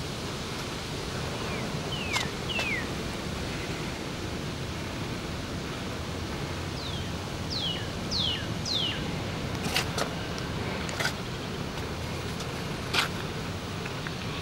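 Steady outdoor background noise with a small bird's short, falling whistled notes: a run of three about two seconds in, and four more in quick succession about seven to nine seconds in. A few sharp clicks come later.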